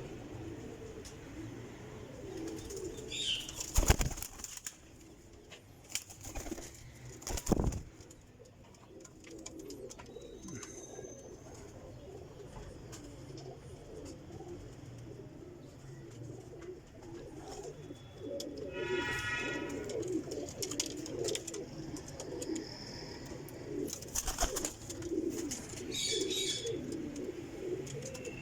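Young high flyer Chohay pigeons cooing continuously in a low warbling murmur, with two sharp knocks about four and seven seconds in and a brief higher-pitched call about two-thirds of the way through.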